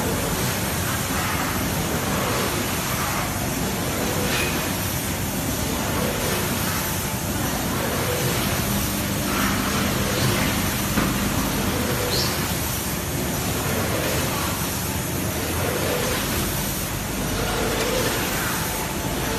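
Steady machinery noise from a potato-chip processing and packaging line, a constant even rush with a faint hum underneath.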